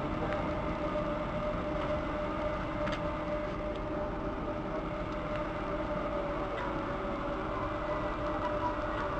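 Berlin S-Bahn electric train running through the station: a steady rumble with a motor whine that slowly falls in pitch as the train slows, and a few faint clicks.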